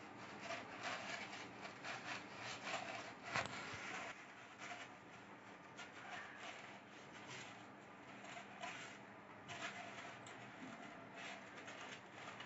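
Crepe paper rustling and crackling faintly as a stack of sheets is folded back and forth into accordion pleats and pressed flat by fingers, with one sharper crackle a little over three seconds in.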